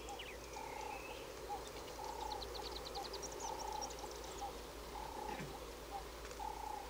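Wildlife ambience of animal calls: short mid-pitched calls repeating every half second to a second over a steady chorus. About two to three seconds in comes a quick run of high chirps.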